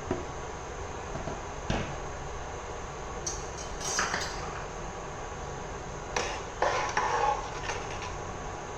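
A metal spoon clinking and scraping against a steel pot several times, stirring rice into boiling water, over a steady hiss.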